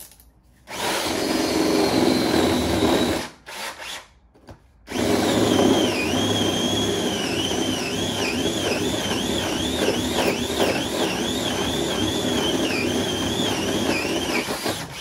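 Cordless drill boring a pilot hole into the wall. It runs for about two and a half seconds, gives a short blip, then runs for about ten seconds, its whine repeatedly dipping and recovering.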